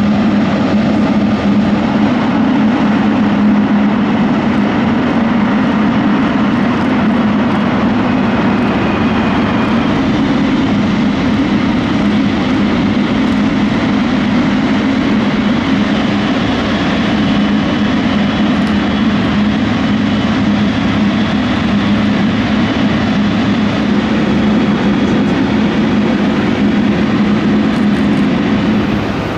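Boeing 777 jet airliner engines running with a steady, loud noise and a constant low hum, holding unchanged throughout.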